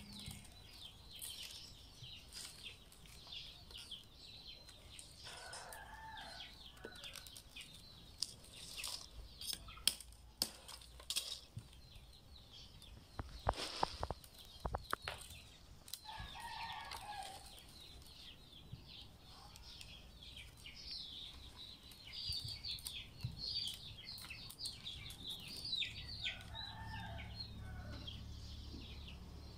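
Rattan strands rustling, scraping and clicking against each other as they are woven into a basket by hand, with sharper clicks now and then. Chickens cluck three times in the background.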